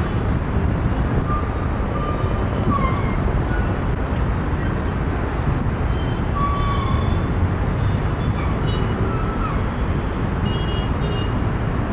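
Steady loud low rumble of engine and traffic noise, with faint short tones scattered over it and a brief high sweep about five seconds in.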